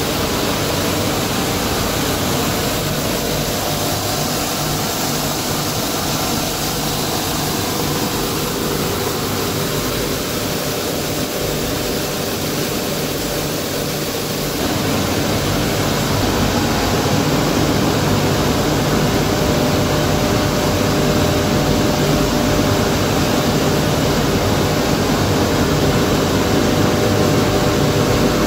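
Motherboard crushing and sorting line running: a steady machine noise of electric motors and blower fans with several steady hums. It steps up in loudness about halfway through.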